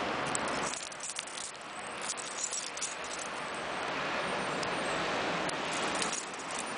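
Steady city traffic noise, with light metallic clicks and jingles of a bunch of keys being handled.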